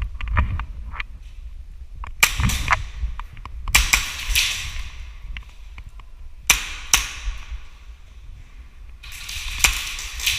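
Airsoft pistols firing: four clusters of quick, sharp shots, with a low rumble underneath.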